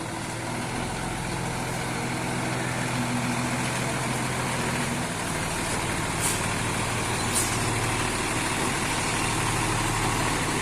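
Diesel bus engine idling steadily.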